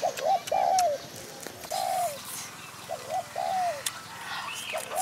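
A dove cooing over and over: short arched coos in phrases of two quick notes and a longer one, repeated about four times, with a brief higher bird call near the end.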